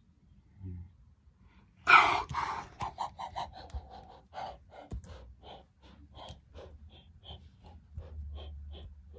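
A person making breathy mouth sound effects for a pretend animal attack: a short grunt near the start, a loud burst about two seconds in, then a quick run of short huffs and gasps.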